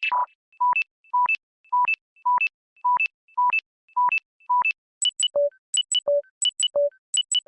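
Phone low-battery alert sound effect: short electronic two-note beeps, high then low, repeating about twice a second. About five seconds in it changes to a different alert, two quick high blips followed by a lower tone, repeating a little more slowly.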